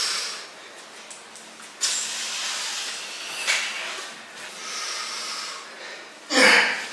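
A weightlifter's forced, hissing breaths through pursed lips, close to a clip-on microphone, as he braces to lift dumbbells. There is a long breath about two seconds in, another near five seconds, and a short, loud one near the end.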